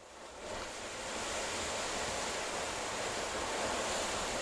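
Rough sea surf: waves breaking in a steady rushing wash that fades in over about the first second.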